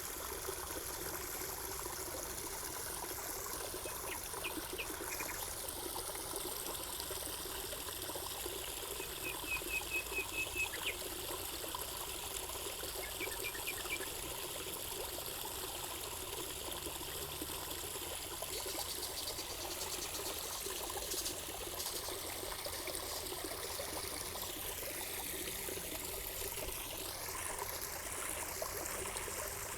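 Water trickling and splashing steadily, as from a spa water feature. A few brief runs of high chirps rise above it near the middle.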